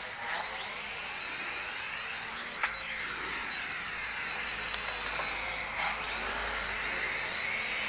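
High-pitched whine of the Feng Niu FN668 flying-car quadcopter's motors and propellers in flight, its pitch repeatedly rising and falling as the throttle and attitude change.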